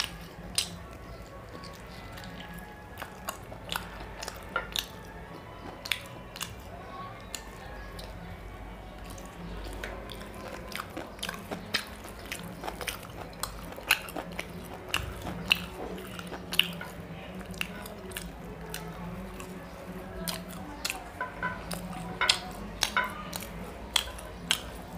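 Close-miked chewing and wet mouth sounds of a person eating mutton curry with luchi, with many sharp smacking clicks at an irregular pace.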